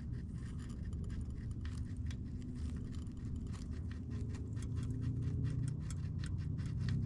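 RC rock crawler's electric motor and twin-speed transmission whining at crawl speed as it climbs rock. Its tyres scrabble on the stone, giving a quick run of small clicks and scrapes. The drivetrain note grows a little louder in the second half.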